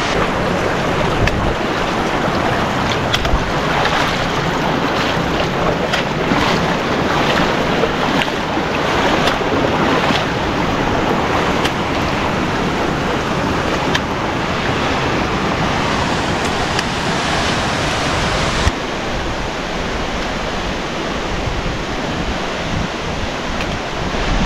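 Loud, steady rush of falling and running water. About three-quarters of the way through, the sound turns abruptly duller.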